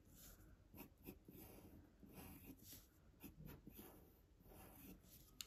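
Faint scratching of a graphite pencil drawing on paper, a run of short irregular strokes.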